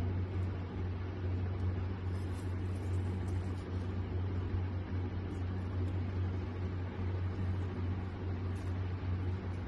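Steady low machine hum with an even hiss, such as a running appliance makes, with a few faint ticks over it.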